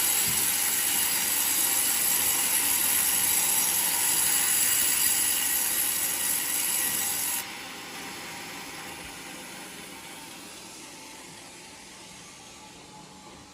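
Sawmill blade cutting through a coconut log, a steady loud hissing cut. About seven seconds in the cut ends abruptly, and a quieter running sound fades away after it.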